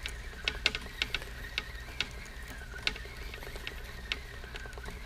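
Okuma 203D line-counter trolling reel being cranked, winding lead core line onto the spool: a faint whir from the reel with many light, irregular clicks.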